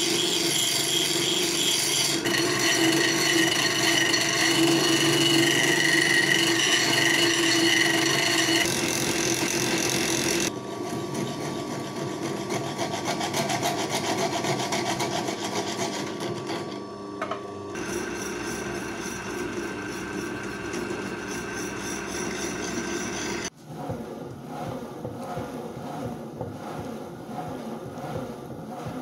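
A hand file rasping against a steel part that turns in a bench drill press, over the steady hum of the drill press motor. It comes as several clips, the sound changing abruptly about ten, eighteen and twenty-three seconds in.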